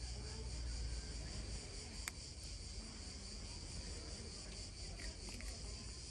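A steady, high-pitched chorus of chirring insects with a fast, even pulse, with one brief click about two seconds in.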